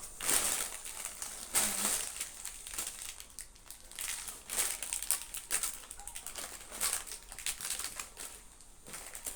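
Crinkling and rustling of chocolate packaging and wrappers as the pieces are handled, in irregular bursts, the loudest near the start.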